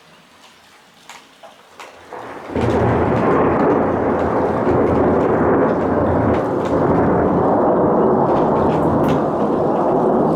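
Thunderstorm: faint rain ticking, then about two and a half seconds in a loud thunderclap from a close lightning strike breaks suddenly and goes on rumbling steadily.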